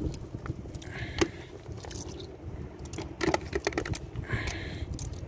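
Small wet yellowtail scad being picked up and dropped among each other on wet concrete: sharp clicks and slaps, the loudest about a second in and a quick run of them about three seconds in, over a steady low rumble.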